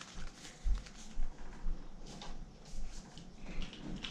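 Paper instruction leaflet being handled and leafed through: a series of short rustles with a few soft bumps, one about two thirds of a second in.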